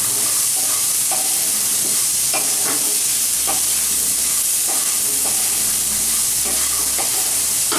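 Potato cubes and soaked chickpeas sizzling in hot oil in a kadai, stirred with a wooden spatula that scrapes and knocks against the pan again and again over a steady frying hiss.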